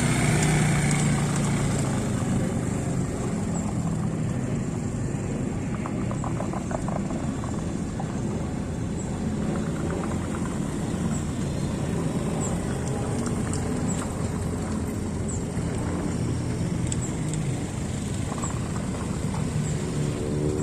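Small ATV engine running continuously, its pitch shifting a little as it is ridden.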